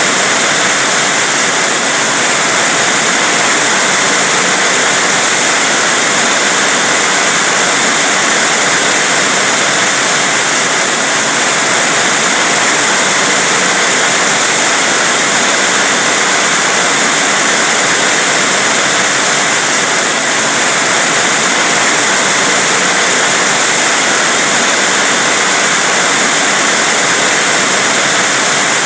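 Heavy rain falling as a dense, steady hiss that does not change.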